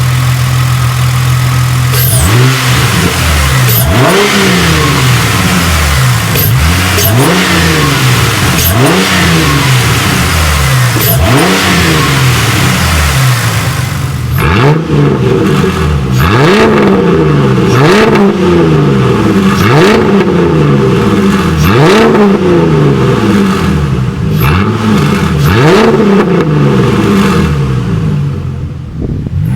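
2007 Ford Mustang's 4.0-litre V6, fitted with a cold air intake, a throttle body spacer and a straight-piped exhaust dumping over the rear axle, running steadily for about two seconds, then revved over and over: each blip rises sharply in pitch and falls back, about every second and a half.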